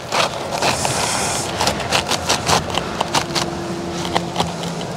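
Asphalt shingles scraping and crackling as one shingle is worked underneath the course above it, over a steady outdoor background noise. A string of short crackles sits about halfway through, and a faint steady hum comes in near the end.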